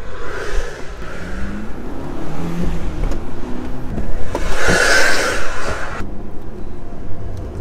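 Audi S3's turbocharged four-cylinder engine running under way, heard from inside the cabin, its pitch rising and falling with the throttle. A loud rushing whoosh swells about four seconds in and cuts off abruptly about two seconds later.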